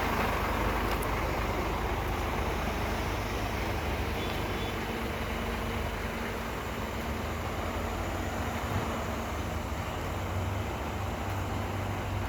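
Heavy diesel machinery running steadily: a continuous low engine hum under a broad mechanical rumble.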